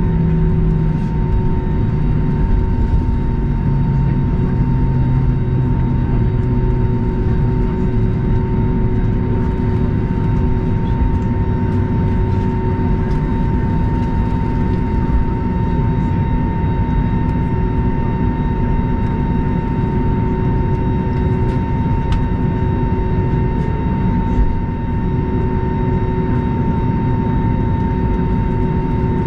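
Steady cabin noise inside an Airbus A320neo airliner: engine and air-system rumble with a constant mid-pitched whine, and a lower hum that falls in pitch over the first several seconds as the engines wind down.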